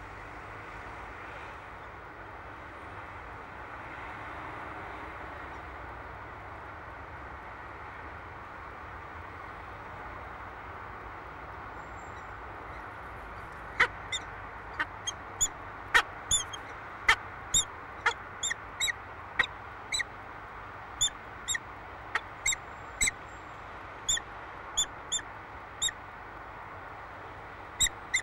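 Peregrine falcon giving a run of about twenty short, sharp chipping calls, singly and in quick pairs, during its courtship display. The calls begin about halfway through, over a steady background hiss.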